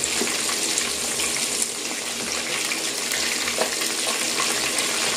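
Battered chicken drumsticks deep-frying in hot oil: a steady sizzle with small crackles and a few light clicks as the pieces are turned with tongs.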